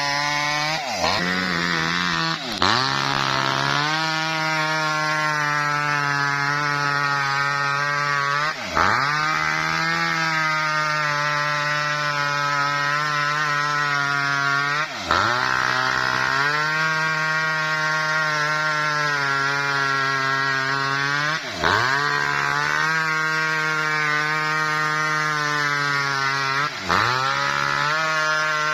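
Small petrol-engined wood-cutting machine running at high speed while splitting a coconut-palm trunk lengthwise. Its pitch dips sharply and recovers five or six times, every few seconds.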